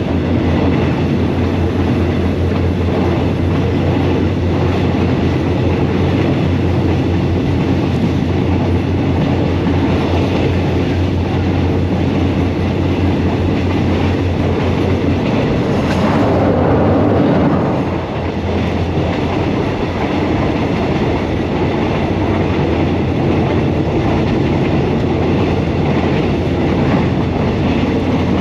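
Commuter train running along the track with a steady, continuous noise. The noise swells louder briefly about sixteen seconds in, then eases slightly.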